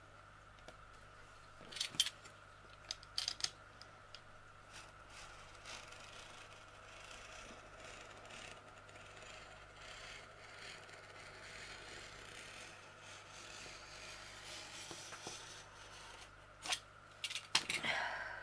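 A blade drawn slowly along an aluminium straight edge, making a soft, uneven scrape, with sharp clicks and knocks of the ruler and tools being handled about two and three seconds in and again near the end.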